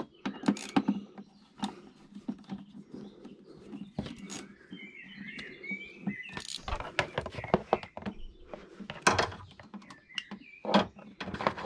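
Irregular clicks, taps and knocks of a small screwdriver and hands working a hose clamp on a car's plastic intake pipe and engine-bay parts. A brief high chirping comes about five seconds in.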